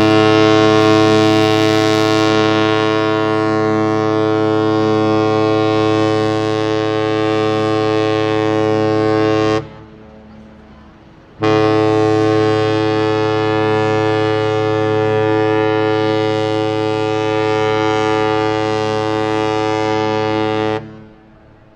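A cruise ship's horn sounding two long, deep blasts of about ten seconds each with a short gap between them, the horn signal of a ship leaving port.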